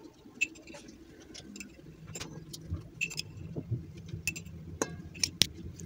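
A metal spoon clinking against a glass jar and a stainless steel bowl while crushed walnuts are scooped into cake batter: a dozen or so light, unevenly spaced clicks. A faint low hum sits under them from about two seconds in.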